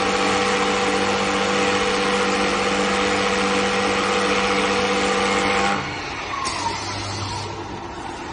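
CNC wood lathe machining a workpiece: a steady pitched motor hum with a loud hiss of cutting, which drops away sharply about six seconds in, leaving a quieter machine noise.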